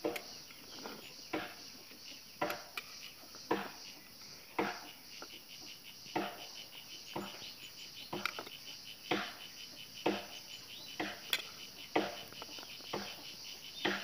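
Insects chirring steadily in a high, even drone, with a second pulsing insect call under it. Sharp knocks come roughly once a second throughout.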